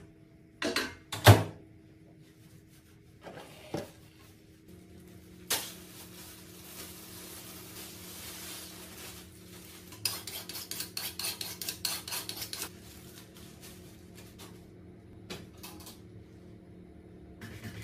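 Kitchen handling sounds: two sharp clatters of dishware about a second in, then a long rustling hiss and a quick run of rustling strokes as a plastic bag of raw meat is opened and handled at the sink, over a steady low hum.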